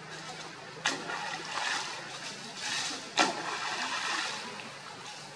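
Leaves and branches rustling in bursts, with two sharp snaps, one about a second in and one just past three seconds.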